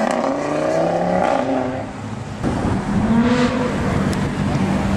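Performance car engine accelerating hard, its pitch rising for the first second or so and then dropping away, with a sharp crack about two and a half seconds in, then a steadier engine note.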